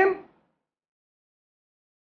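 The end of a man's spoken word, cut off about a quarter of a second in, followed by dead silence.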